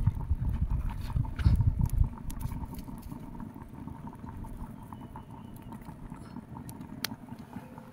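Large cooking pots being washed by hand: water splashing and scrubbing, with small knocks. A low rumble for the first two seconds, then quieter, and one sharp click about seven seconds in.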